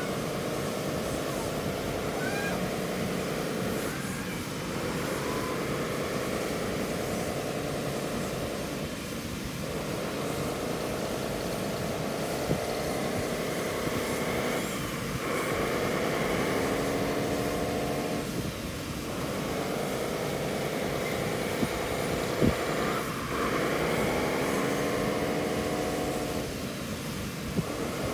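Radio-controlled model wheel loader driving back and forth over sand, its drive whining and gliding up and down in pitch in runs of a few seconds, dipping briefly between runs as it stops and changes direction. A few faint clicks stand out.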